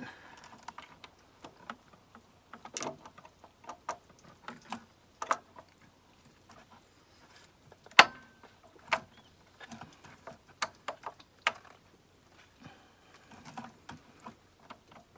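Irregular clicks and light knocks of a Mini N14 engine's vacuum pump being worked by hand against the end of the camshaft, wiggled to get its drive to engage the cam's grooves. One sharp click about eight seconds in is the loudest.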